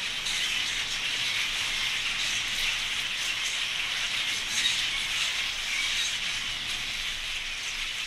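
A large flock of wild budgerigars chirping together, a dense, steady mass of high calls with no single bird standing out.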